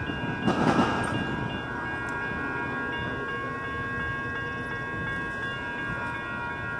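Railroad grade-crossing warning bells ringing steadily while the gates are down, over a low rumble. A gust of wind buffets the microphone about half a second in.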